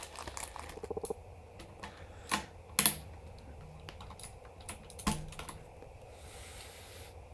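Plastic keycaps being pulled off a mechanical keyboard with Cherry MX Blue switches: a quick run of small clicks about a second in, then a few separate sharp clicks and snaps.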